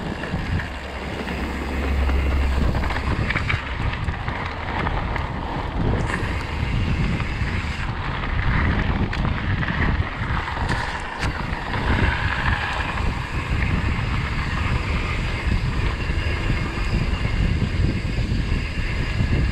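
Wind buffeting a moving microphone, with steady vehicle and road noise underneath.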